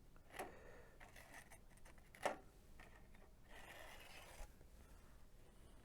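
Faint handling of small parts on a workbench: a light click, a sharper click about two seconds in, and a short scraping rustle about three and a half seconds in.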